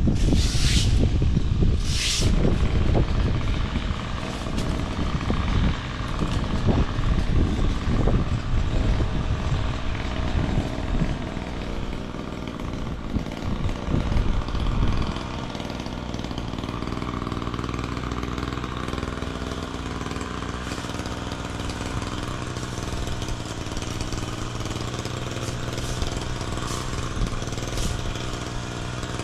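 A motor engine running: rough and uneven with surges for the first half, then settling about halfway through into a steady low idle hum.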